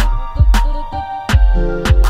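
Background music with a heavy bass line and sharp drum hits in a steady beat.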